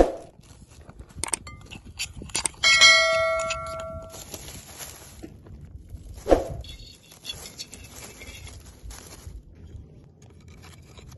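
A metal cooking pot clangs once and rings for about a second, between knocks and thumps as cookware is handled.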